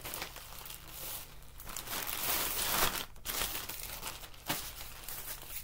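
Plastic mailer bags crinkling and rustling as they are handled and stuffed with clothes, loudest about two to three seconds in.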